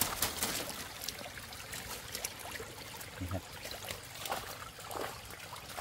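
Water trickling and dripping from a wet mesh net fish trap as it is lifted and handled, with scattered small splashes and rustles of the netting.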